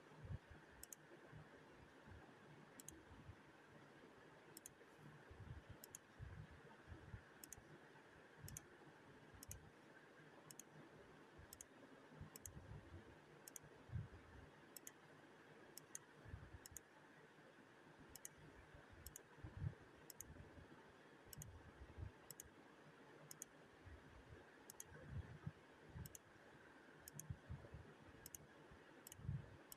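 Near silence: faint room tone with thin, high clicks about once a second and scattered soft, low thumps.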